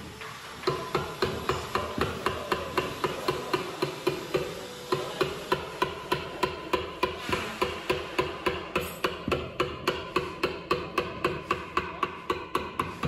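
Steel-headed Japanese carpenter's hammer (genno) driving a chisel into wood to chop a mortise: rapid, even strikes, about three to four a second, each with a short ring. The strikes pause briefly at the start.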